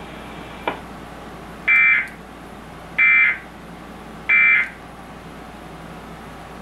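Emergency Alert System end-of-message signal: three short, identical buzzing data bursts about a second and a half apart, over a steady receiver hiss. It marks the close of the alert.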